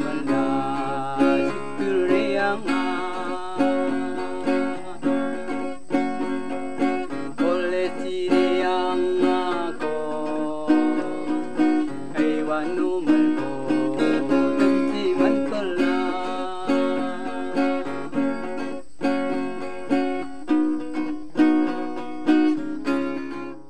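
A man singing while strumming chords on an acoustic guitar, the strums falling in a steady rhythm under the vocal line.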